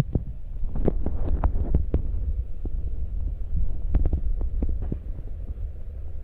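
Scattered raindrops tapping in an irregular patter of sharp drips over a steady low rumble.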